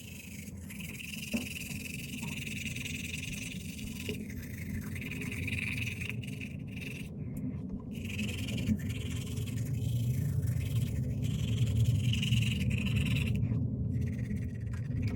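Toothbrush scrubbing teeth: a scraping, rubbing sound that comes in spells, stopping and starting.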